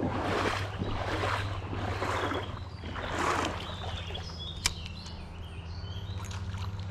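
Footsteps wading through a shallow creek, splashing in an even stride about once a second, then stopping. A single sharp click follows a little later.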